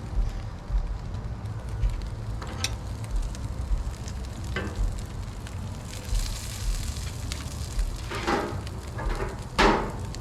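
Food sizzling on a Blackstone flat-top griddle, with a few short scrapes and taps, the two loudest near the end.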